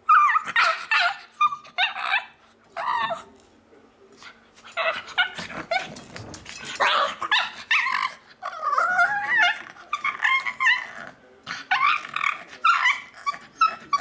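Pug making monkey-like noises: a long run of short, squeaky yips, whines and grumbles whose pitch bends up and down, coming in quick bursts with only brief pauses.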